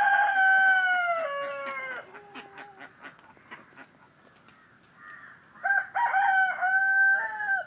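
A bird calling twice, each a long call held about two seconds; the first falls in pitch at its end.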